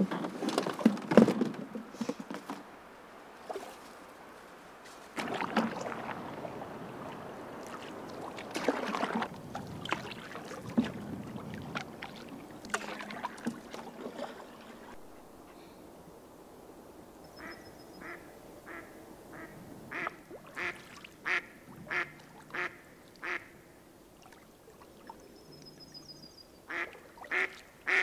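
A duck quacking: a run of short quacks starting about halfway through, about one and a half a second, louder towards the end. Before it, knocks and water noise from a canoe being paddled.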